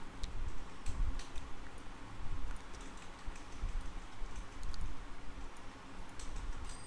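Scattered clicks of a computer mouse and keyboard, a few isolated presses spread irregularly over several seconds, over a steady low hum.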